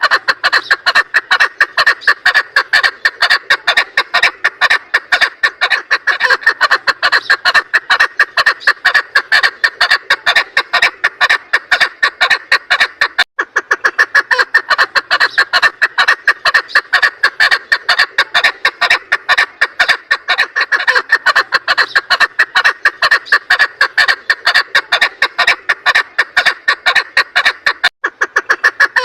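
Female chukar partridge calling: a fast, steady run of short repeated clucking calls, several a second, broken only by two very brief gaps. This is the hen's call used to lure chukar for hunting or trapping.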